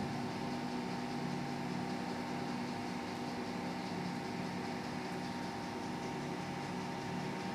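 Tehag 6000 kg welding positioner's power tilt drive running, a steady hum with a higher whine above it as the heavy table tilts over.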